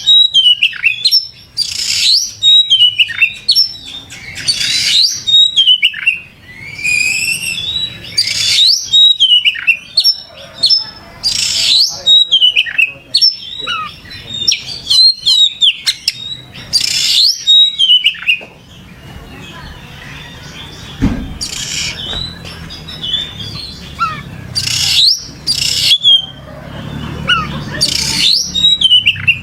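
Oriental magpie-robin (kacer) singing vigorously: loud, rapid whistled notes sweeping up and down, broken by repeated harsh rasping bursts. Past the middle the song turns quieter and sparser for a few seconds, then the harsh bursts return.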